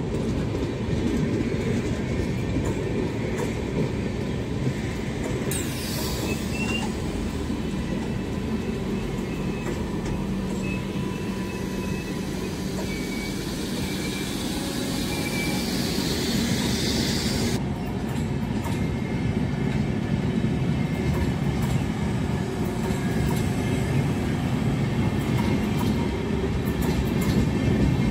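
Tejas Rajdhani Express LHB passenger coaches passing close by: a steady rumble of steel wheels on rail, with clickety-clack over the rail joints.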